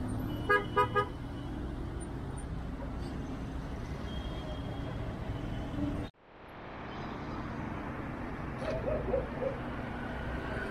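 Road traffic on a city street: a steady engine and tyre hum, with three short car-horn toots about half a second in. Around six seconds in the sound cuts out abruptly and fades back in.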